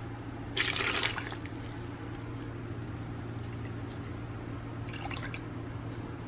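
Chicken broth poured from a ladle into a plastic blender jar: a short splashing pour about half a second in, then a softer splash of liquid near five seconds.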